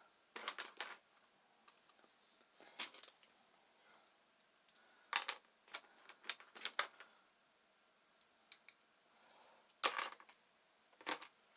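Scattered small metallic clicks and clinks, a few sharp ones at a time with pauses between, from screws and small metal parts being handled and set down as they are taken out of the micro lathe.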